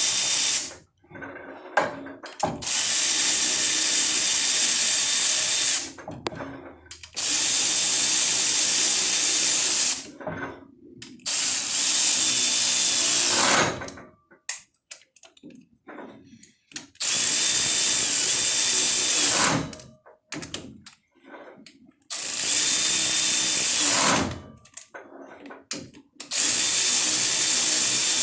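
Power drill running bolts in, six bursts of about two to three seconds each with short pauses between them for clicks and handling.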